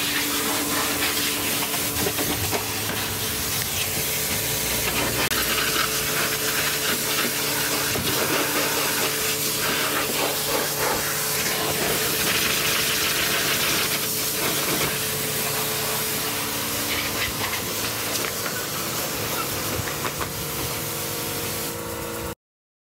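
High-pressure washer jet hissing as it sprays the car's body and wheels, over a steady machine hum; it cuts off abruptly near the end.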